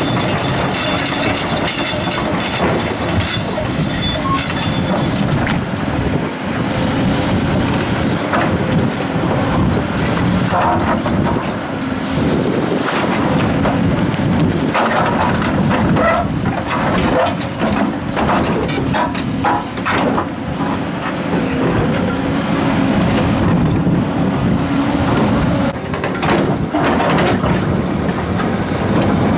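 Komatsu hydraulic excavators' diesel engines running steadily under load, with frequent knocks, clatter and scrapes as large rocks are handled and set in place.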